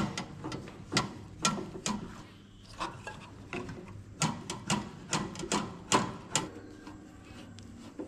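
Screwdriver driving the mounting screws of a replacement magnetron into a microwave oven's sheet-metal chassis: irregular short metallic clicks and taps, with a busier run of them a little past the middle.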